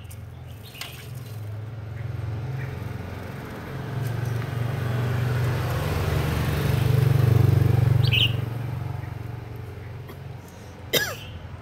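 Caged songbirds giving short sharp chirps about a second in, around eight seconds and near the end, over the low rumble of a passing vehicle that swells up through the middle and fades away.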